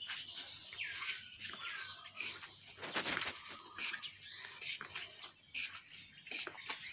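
Small birds chirping in short, sharp notes, mixed with scattered clicks and a brief rustle about three seconds in.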